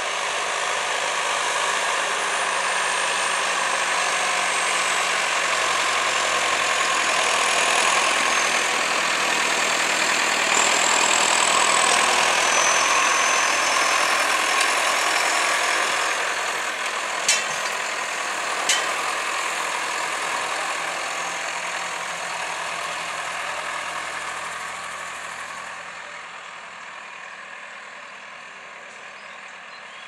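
John Deere 6430 Premium tractor's four-cylinder diesel running under load while pulling a Kverneland four-furrow reversible plough through the soil; it grows louder as the tractor passes close and fades as it moves away. Two sharp knocks come a little past halfway.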